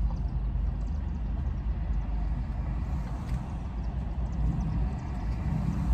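Steady low vehicle rumble heard inside a parked car's cabin, with a faint click about three seconds in.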